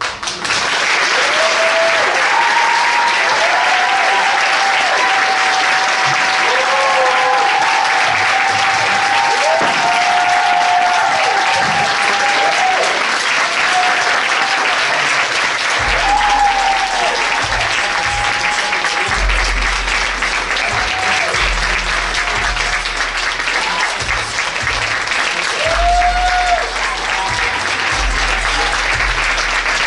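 Theatre audience breaking into loud applause all at once, with shouted cheers and whoops over the clapping. About halfway through, music with a deep bass line comes in under the applause.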